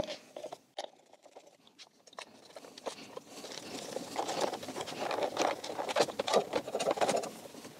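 Handling noise of a plastic-coated steel wire cable and the motorcycle's rear rack parts being worked by hand: scattered light clicks at first, then from about three seconds in a busy run of small clicks, taps and scraping.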